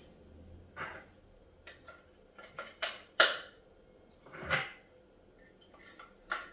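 Irregular clicks and light plastic knocks of AA batteries being fitted into an RC car's handheld radio transmitter.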